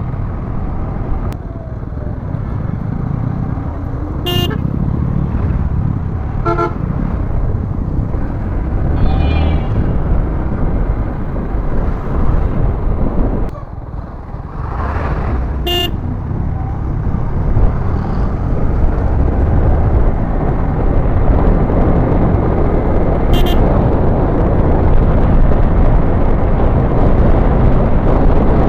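Riding a Yamaha MT-15 motorcycle through traffic: dense wind, engine and road noise, with short vehicle horn toots about four times. The noise grows louder in the second half.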